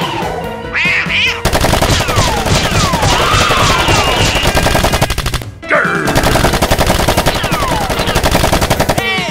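A rapid, sustained machine-gun sound effect cuts in about a second and a half in, with high screams gliding up and down over it. The fire drops out for a moment just past the middle and then starts again.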